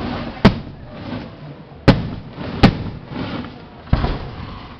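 Firework aerial shells fired from mortars, going off in four sharp bangs about a second apart, each trailing off in a short rumble.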